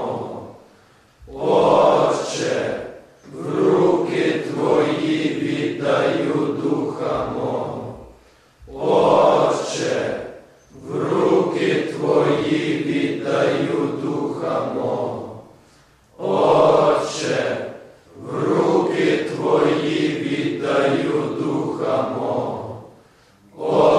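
A group of voices chanting together, in long phrases with a short pause about every seven to eight seconds.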